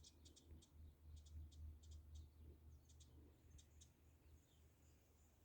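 Near silence: quiet outdoor ambience of faint, irregular high-pitched ticks and a few faint chirps over a low rumble.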